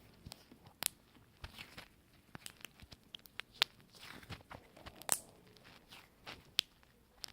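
Slime being squeezed and worked in the hands, making an irregular run of small wet pops and crackles.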